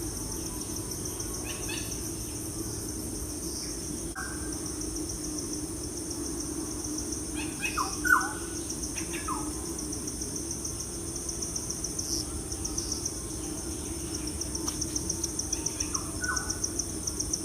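Insects trilling steadily in rapid high pulses, with a few short falling chirps from a bird or other small animal about 4 s in, around 8 s and near the end, over a steady low hum.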